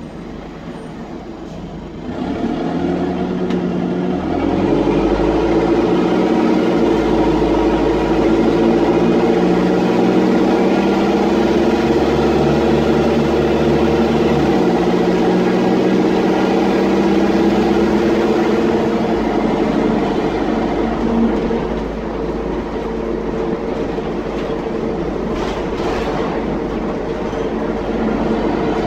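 Dennis Dart SLF bus's diesel engine heard from inside the saloon with a loud blown exhaust: it pulls away about two seconds in and runs hard under load, its pitch stepping up several times, then eases off about two-thirds of the way through.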